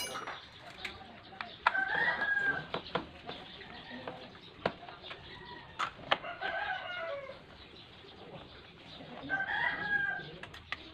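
A rooster crowing three times in the background, each crow about a second long, rising and then falling in pitch. Between the crows come a few sharp clicks of hand tools against the scooter's casing.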